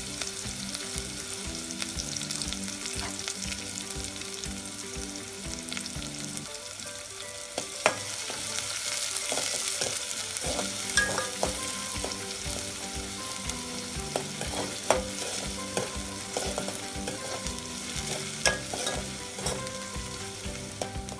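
Chopped onions sizzling steadily in hot oil with mustard seeds and cumin in an aluminium pot, as they are sautéed until they brown. A steel spoon scrapes and clinks against the pot several times as they are stirred, from about eight seconds in.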